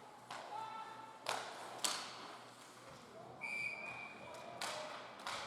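Ice hockey rink: sharp knocks of play against the boards, the loudest about two seconds in, then a referee's whistle blown once for about a second.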